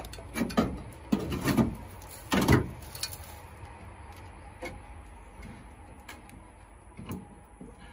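Pry bar and hand knocking and scraping against the rusty steel grille of an old Chevrolet truck-style front while feeling for the stuck hood latch: a run of sharp metal clanks in the first few seconds, the loudest about two and a half seconds in, then fainter scattered taps.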